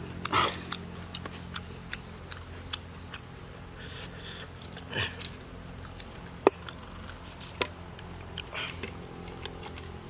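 Large kitchen knife cutting and scraping a small ingredient held in the hand, making scattered light clicks with two sharper ones after the middle, over a steady high insect drone.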